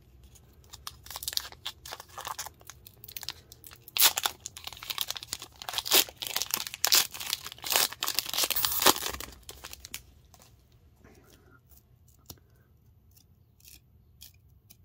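Foil wrapper of a hockey card pack crinkling and being torn open, a run of crackling rips that is loudest in the middle. After about ten seconds it gives way to faint ticks as the cards are pulled apart.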